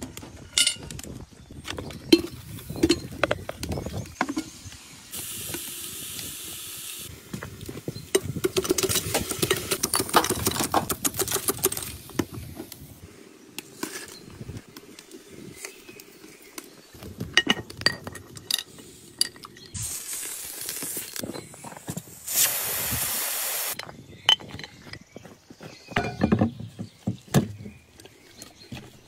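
Cooking with an Afghan cauldron pressure cooker on a wood-fired stove: metal pot and lid clinking and knocking, with frying sizzle. A loud, steady hiss lasts about a second and a half, two-thirds of the way through.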